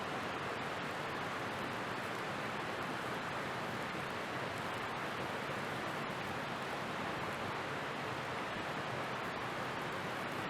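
Beef steak sizzling over a campfire: a steady hiss with faint scattered crackles.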